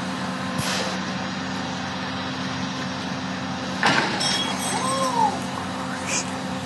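Tow truck engine running steadily as the truck's boom lowers a car from its side back onto its wheels. The car lands with a loud thud and rattle about four seconds in. Short hisses come about half a second in and again near the end.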